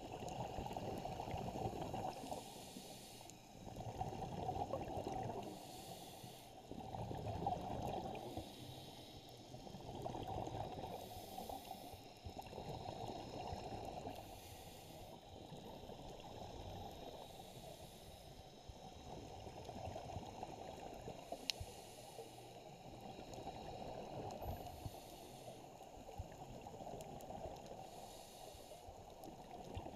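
A scuba diver breathing through a regulator, heard underwater through a camera housing: a hiss of drawn air alternating with a rumble of exhaled bubbles, in a steady rhythm of one breath about every three and a half seconds.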